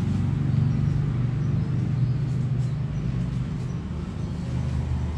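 A steady low rumble with a few faint light ticks.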